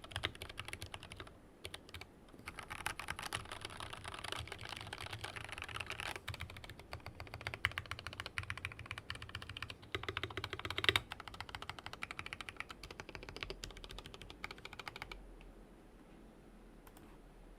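Steady fast typing on a Tokyo60 mechanical keyboard with lubed, filmed full-nylon Lavender linear switches, stock keycaps and an aluminium case, a dense run of keystroke clacks. The typing stops a few seconds before the end.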